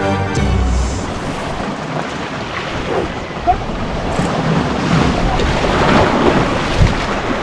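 Strong wind buffeting the microphone over sea surf washing on the shore rocks, a rough, steady rushing with two brief knocks, one about halfway through and one near the end. A music track cuts off within the first second.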